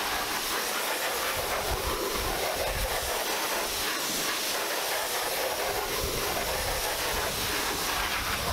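High-pressure water jet from a pressure washer lance spraying against the underside of a car bonnet, pre-rinsing it: a steady hiss of water on sheet metal.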